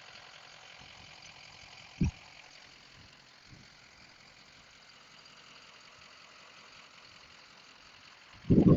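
Faint steady driving noise from the cab of a 2004 Ford F250 6.0L Power Stroke diesel on the move, muffled through an earpiece microphone. There is a brief knock about two seconds in and a short louder sound near the end.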